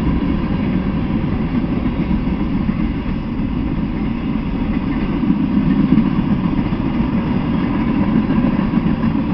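Freight train of covered hoppers and boxcars rolling past on the rails: a steady, loud rumble of steel wheels on track with no pause.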